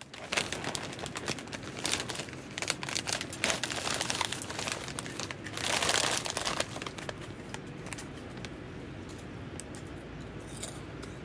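Plastic snack bag crinkling as it is handled and pulled open, loudest about six seconds in, then settling to occasional light crinkles.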